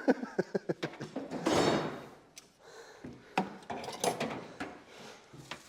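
A rustling, scraping sound followed by a few sharp clicks and knocks: handling noise in a pickup cab as someone moves about by the new seat.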